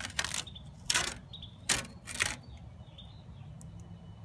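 Blue masking tape being peeled off a freshly spray-painted van grille, in several short rips during the first two and a half seconds.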